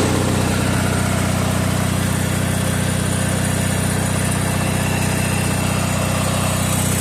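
Riding lawnmower's 13.5 hp Briggs & Stratton Industrial/Commercial single-cylinder engine running steadily at an even speed, warming up after a cold start without the choke.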